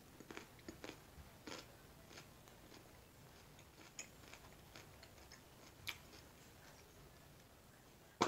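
A raw carrot being chewed with the mouth closed: faint, irregular crunches, frequent in the first couple of seconds and then sparser, with one sharper crunch near the end.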